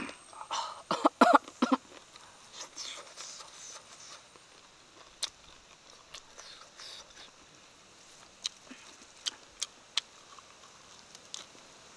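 Close-up eating sounds: a few loud, short mouth sounds in the first two seconds, then lettuce leaves rustling as they are torn and folded, with scattered sharp clicks from the metal spoon and from biting.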